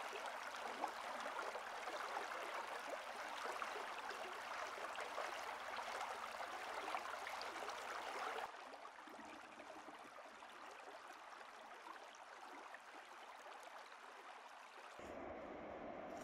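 Mountain stream rushing over snow-covered rocks, a steady hiss of running water. About eight seconds in it drops to a weaker, more distant wash, and near the end it gives way to a duller steady background.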